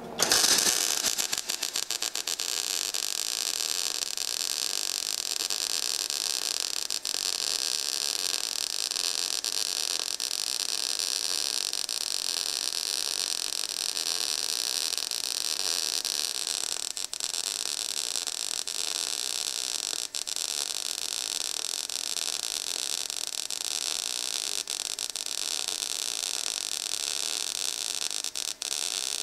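MIG welding arc burning a steady crackling hiss as a bead is run with 0.023-inch ER70S-6 wire under 75/25 argon–CO2 shielding gas. The arc strikes just after the start and holds an even sound throughout.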